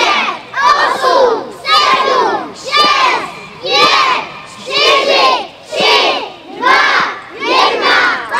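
A crowd of children and adults shouting a countdown in Czech in unison, one number about every second. Near the end the final shout turns into sustained cheering.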